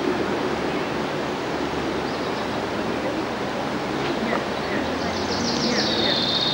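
Steady outdoor background noise with no clear source; from about five seconds in, a small bird sings a quick run of high notes.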